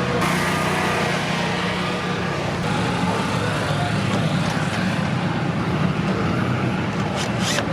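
Late model race car engines running, a steady low engine drone mixed with noise, with a short hiss near the end.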